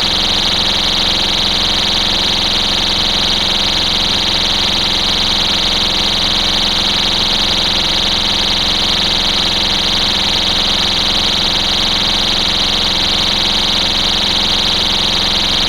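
STI Stopper pull-station cover's warning horn sounding continuously: a loud, steady, high-pitched electronic tone with no breaks.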